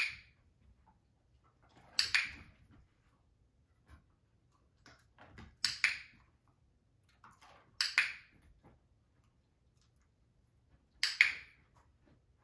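Five sharp clicks, a few seconds apart, with quiet between them.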